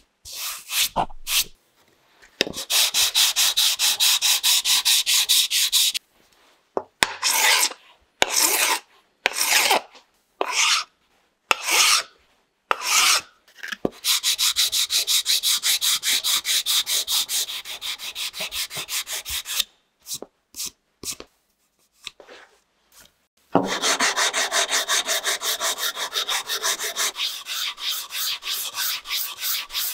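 Sandpaper on a hand sanding block rubbed along the edge of a wooden block: runs of quick, even back-and-forth scratchy strokes, broken by stretches of slower single strokes and short pauses.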